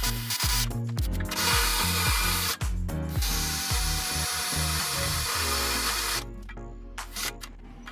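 A power tool running as it works at the heavy welds holding an old engine mount onto a steel cross member. It starts about a second in, stops briefly near the middle and cuts out about six seconds in, over backing music with a bass line.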